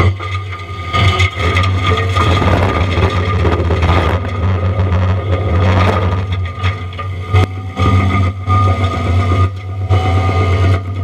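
John Deere 333E compact track loader running hard with a Diamond Mower forestry mulching head, a steady low engine hum with a steady whine above it. Between about two and six seconds in, a rougher, denser noise rises as the mulcher head grinds into wood.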